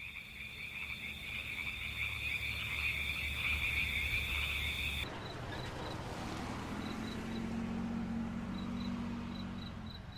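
Nature ambience: a steady high-pitched trilling chorus of small animals. About five seconds in it changes abruptly to a quieter background with short high chirps repeating.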